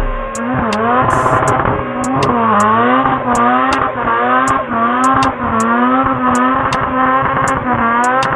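Mazda RX-7's rotary engine revving hard in repeated rising surges, about two a second, while holding a tyre-smoking burnout. Sharp, evenly spaced clicks sound over the engine.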